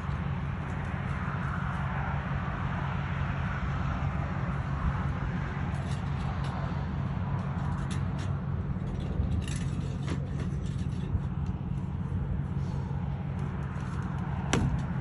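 A steady engine rumble with scattered clanks and knocks over it.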